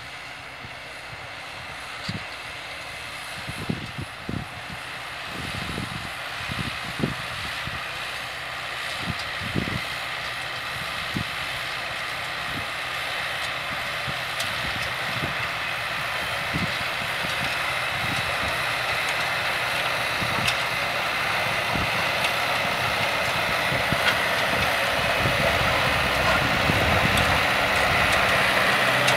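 Tractor engine running under load as it tows a manure spreader whose rear spinners are throwing out cattle manure, growing steadily louder as it approaches. A few low knocks come in the first half.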